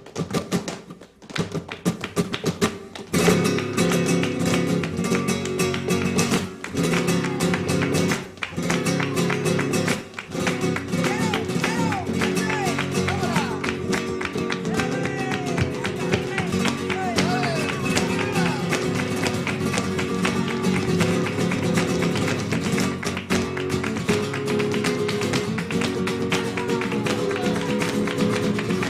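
Flamenco music led by guitar, with quick sharp percussive strokes; the full music comes in about three seconds in, after a few scattered taps.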